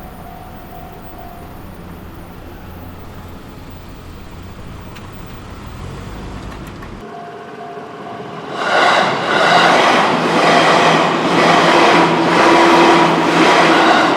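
A train on the JR Chuo Line passing over a level crossing. A low rumble comes first as the train approaches. About eight seconds in it turns into a loud rushing noise with regular wheel clatter as the cars pass.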